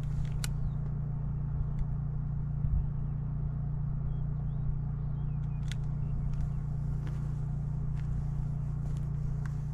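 An engine running steadily with an even, low hum, with a few sharp clicks on top.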